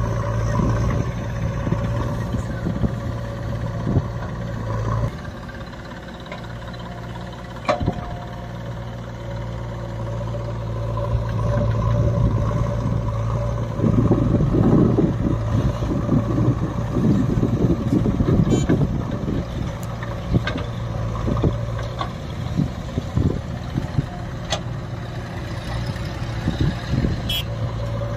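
JCB backhoe loader's diesel engine running steadily as the backhoe digs and dumps soil, easing back about five seconds in and then working louder from about halfway through, with a few sharp clanks from the bucket and arm.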